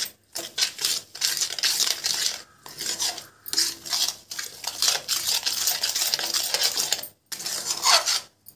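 Steel spoon scraping and clinking against a metal kadhai while stirring a thick milk-powder and sugar paste, with a few short pauses in the stirring.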